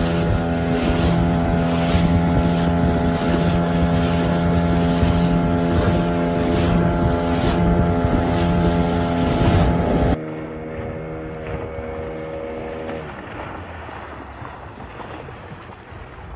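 An engine running steadily at an even pitch. About ten seconds in it drops sharply in level, then dies away over the next few seconds.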